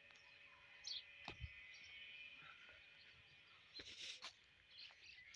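Near silence with a few faint, short bird chirps and a couple of soft clicks and rustles.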